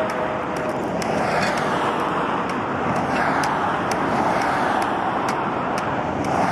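Steady rush of freeway traffic, swelling and easing as vehicles pass, with faint high ticks above it.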